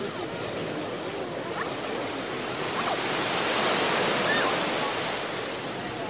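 Ocean surf breaking and washing up on a beach, a steady rush that swells about halfway through and eases off near the end.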